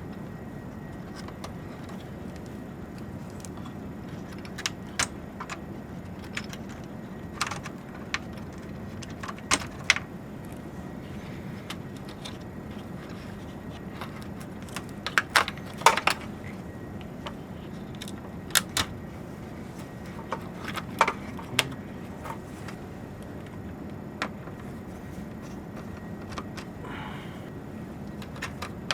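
Scattered sharp clicks and small rattles of cable connectors being unplugged and handled inside a server chassis, over a steady low hum. The clicks come in small clusters, the loudest about halfway through.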